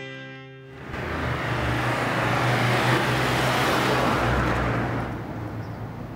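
A car passes by close, the noise of its engine and tyres swelling for about three seconds and then fading away.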